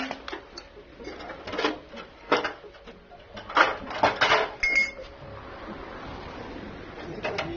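Metal clanking and knocking: a dozen or so irregular sharp strikes, the loudest cluster about halfway through, from steel parts being handled or struck during the tricycle repair.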